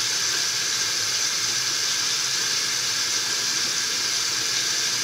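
Bathroom tap running, a steady even rush of water.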